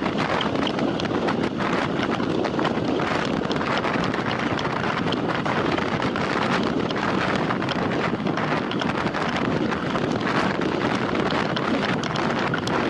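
Steady rush of wind buffeting the microphone of a cyclist riding a time-trial bike at race speed.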